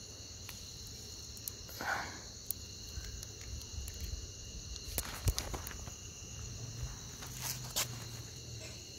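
Night chorus of crickets trilling steadily, with a few sharp clicks and rustles of handling: the last near the end.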